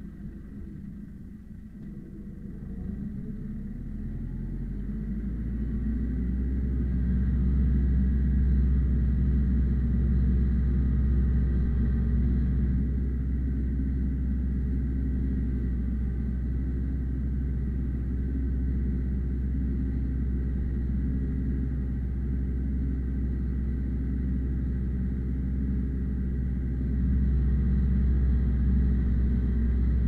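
Ursus C-355 tractor's four-cylinder diesel engine running hard under load while pulling a two-furrow plough through heavy ground, heard from inside the cab. It grows louder and rises in pitch over the first several seconds, then holds a steady, loud labouring note.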